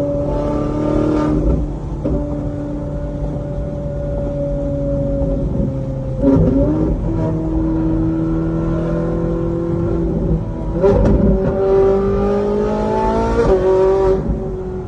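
Ferrari engine pulling hard through the gears, its note climbing within each gear and dropping sharply at gear changes about 1.5, 6, 11 and 13.5 seconds in.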